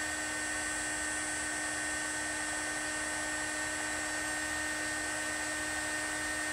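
Handheld electric heat gun running steadily, its fan motor giving a constant whine over a rush of hot air as it shrinks heat-shrink tubing onto a crimped wire connection.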